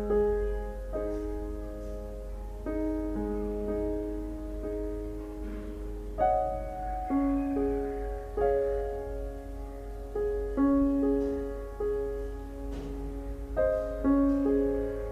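Soft background piano music, slow sustained chords changing every second or two.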